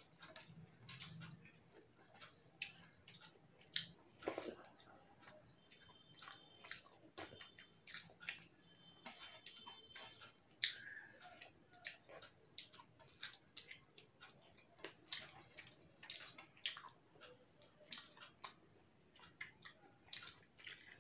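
Faint eating sounds: chewing of rice and soybean curry, and small irregular clicks and smacks as fingers gather food from a steel plate.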